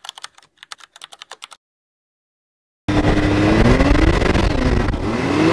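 A quick run of keyboard-typing clicks, a typing sound effect for on-screen text, then a second or so of silence. About three seconds in, a turbocharged Can-Am side-by-side's engine cuts in loud, its pitch rising and falling as it accelerates.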